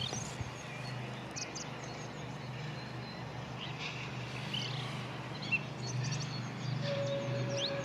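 Birds chirping over a low, steady rumble. Near the end a steam locomotive's whistle begins on one steady note.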